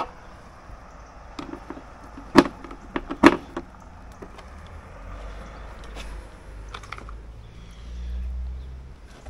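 Sharp clicks and knocks of a screwdriver and hands working on the plastic rear light panel of a motorhome, with two louder clicks a little under a second apart. A low rumble follows in the last few seconds.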